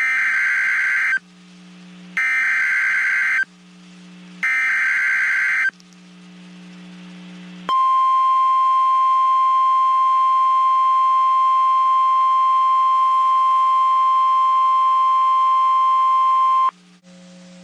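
NOAA Weather Radio Emergency Alert System header: three short bursts of digital SAME data tones, each a little over a second long. Then, about eight seconds in, the steady 1050 Hz weather radio alert tone comes on and holds for about nine seconds before cutting off. Together they signal a severe thunderstorm watch.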